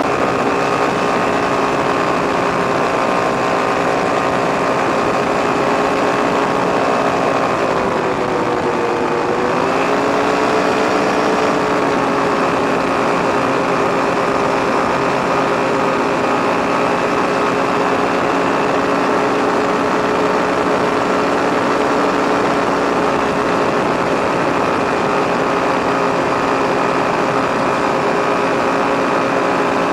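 An engine running at a steady speed, its pitch dipping briefly about eight seconds in and then settling back.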